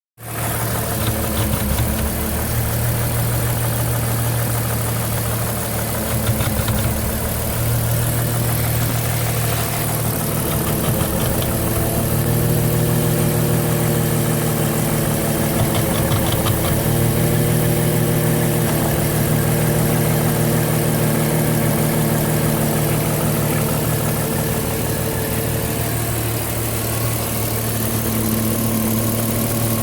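Porsche Cayenne engine idling steadily. The idle speed rises slightly for several seconds in the middle, then settles back.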